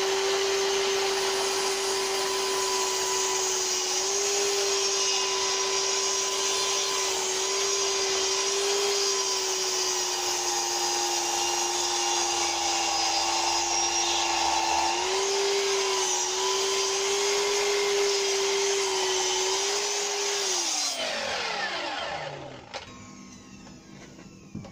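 Festool KS 120 EB (Kapex) sliding mitre saw running under load, its blade cutting slowly through a thick softwood beam. The motor note dips a little and recovers, then the saw is switched off about 21 seconds in and its pitch falls as it winds down. A sharp click comes near the end.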